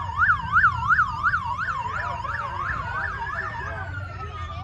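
Police siren in fast yelp, sweeping up and down about three times a second, which stops about three and a half seconds in while a slow rising-and-falling wail carries on. A low engine rumble runs underneath.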